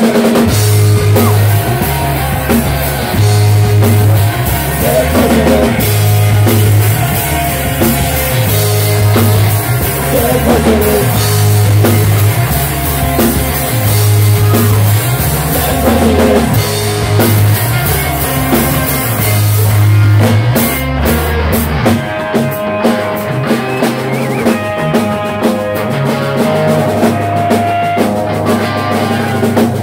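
A live rock band plays loud, with electric guitars, bass and a drum kit, and a singer at the mic. About two-thirds of the way in, the band thins out, leaving a held guitar line over the bass.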